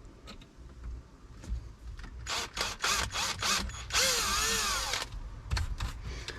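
Power drill boring a small pilot hole: a few short bursts, then one run of about a second with the motor speed rising and falling.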